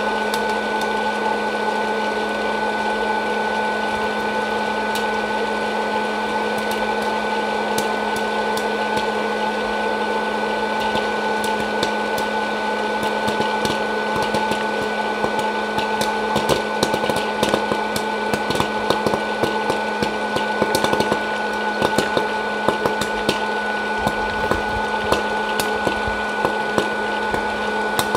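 Hot-air popcorn popper's fan motor running steadily with a hum, while the kernels inside pop as sharp clicks, few at first and coming faster from about halfway through.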